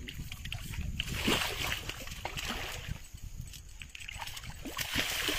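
A large hooked carp thrashing and splashing at the water's surface in the shallows, with two spells of heavier splashing, one about a second in and one near the end.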